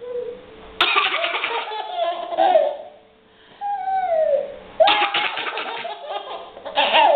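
A baby laughing in short, breathy, high-pitched bursts: three bouts, with a single falling squeal between the first two.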